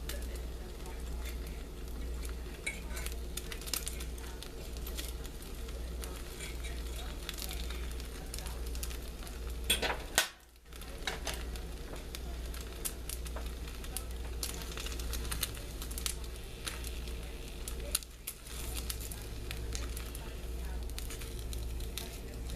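Egg omelet sizzling in a small cast iron skillet over an alcohol stove, with many small crackles and pops. A sharp knock about ten seconds in is followed by a brief drop to near silence, and another knock comes later.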